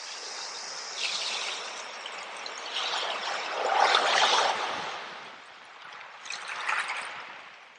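Running water trickling and pouring, swelling and easing in uneven surges, loudest about four seconds in and fading toward the end.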